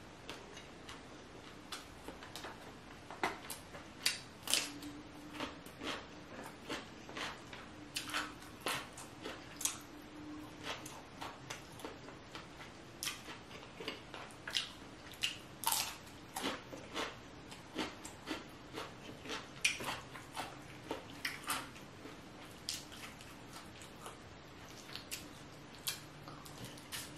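Close-up wet eating sounds: chewing, lip smacks and finger-licking on sauce-covered shrimp and crawfish from a seafood boil, heard as many short, irregular sharp clicks and smacks.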